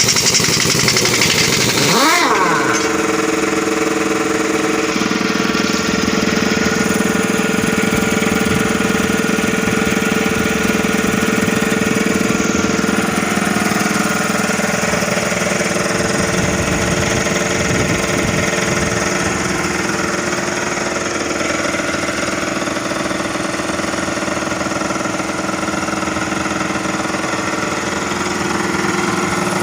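An engine running steadily at idle. About two seconds in there is a brief rising-and-falling sweep in pitch, and its tone shifts a little a few seconds later.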